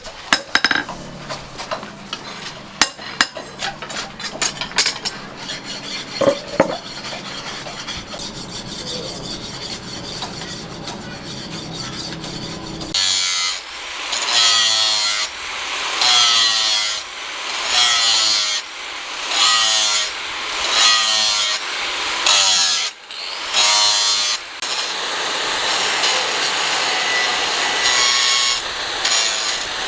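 Light tapping and scraping, then from about halfway a hand saw working in regular back-and-forth strokes, about one a second, which run together into a steadier scraping near the end.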